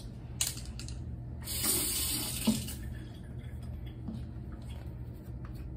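Bathroom sink tap run briefly, water rushing for about a second and a half before it is shut off, while a toothbrush is readied. A sharp click near the end of the flow is the loudest moment, with small handling clicks around it.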